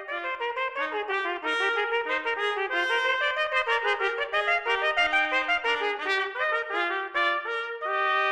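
A trumpet plays a fast run of short notes, then holds one long note near the end.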